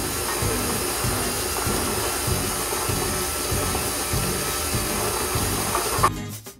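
KitchenAid Artisan stand mixer running steadily, its flat beater whirring through a cocoa-and-sugar mixture in a steel bowl. Background music plays underneath, and about six seconds in the mixer noise cuts off suddenly, leaving the music alone.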